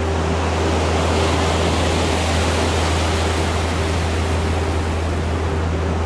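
Lake waves breaking and washing against a concrete seawall: a steady rushing surf.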